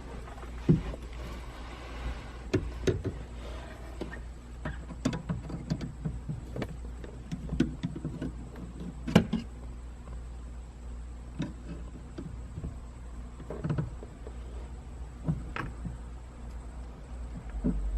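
Irregular clicks and knocks of hands and a tool working at a car's clutch pedal assembly under the dashboard, trying to pry off the stiff factory clutch spring. A steady low hum runs underneath.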